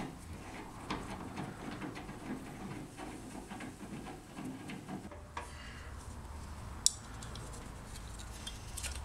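Screwdriver backing out the screws of a car door striker plate: faint scraping and small metallic ticks, with one sharp click about seven seconds in as the plate comes free.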